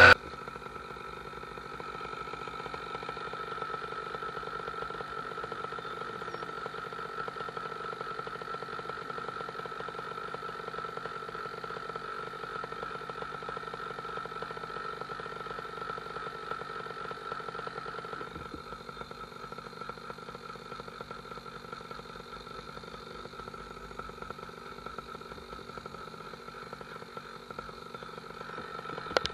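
Paramotor engine idling steadily, a constant droning note whose tone shifts slightly and drops a little in level about two-thirds of the way through.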